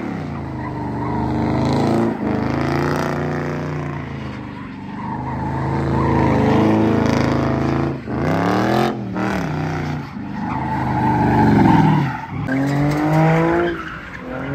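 A car doing donuts: its engine revs up and down over and over while the spinning rear tyres squeal across the pavement, with brief drops in revs about eight and twelve seconds in.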